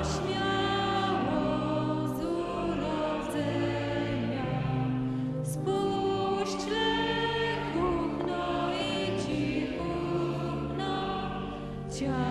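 Many voices singing a slow Polish Lenten hymn together, holding long notes from phrase to phrase.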